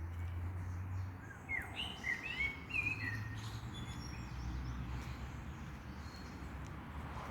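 A songbird singing a short phrase of quick chirped notes, rising and falling, about a second in, over a steady low rumble.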